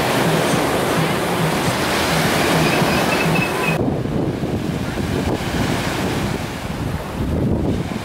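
Sea surf washing onto a sandy beach, a steady rush of foamy waves, mixed with wind buffeting the microphone. The high hiss thins out about four seconds in.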